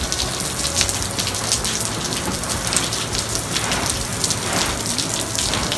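Hot pot broth boiling in an open pot, a dense, steady crackle of bubbling.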